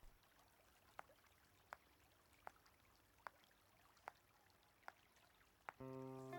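Near silence with faint, evenly spaced ticks, about one every three-quarters of a second. Near the end a held music chord comes in.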